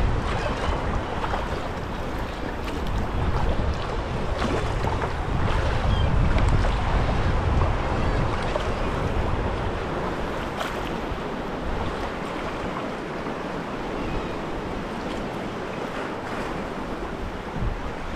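Sea water lapping and splashing around a sea kayak on small waves, with wind rumbling on the microphone, heaviest through the first half.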